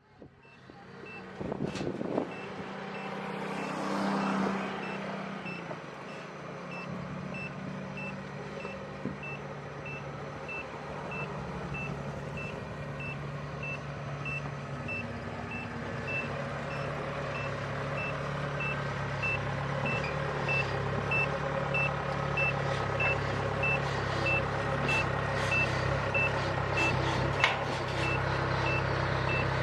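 Kubota DC-70 combine harvester's diesel engine running, growing gradually louder, while its warning beeper sounds one steady high beep a little under twice a second.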